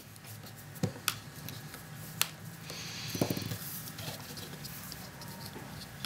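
Handling noise of a phone's housing being worked into place by fingers. There are a few small sharp clicks about one and two seconds in, and a brief scraping rustle around three seconds.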